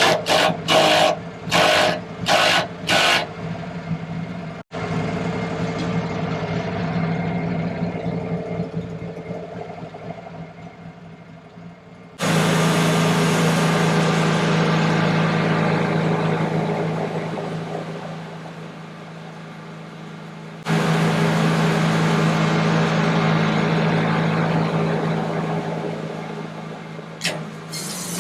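Wood-Mizer LT15 Wide bandsaw mill, with its drive belt newly tensioned, running and cutting a log: the engine drones steadily while the blade saws. Loud cutting noise starts suddenly about 12 seconds in and again about 21 seconds in, each time fading away over several seconds. A few short loud bursts come near the start.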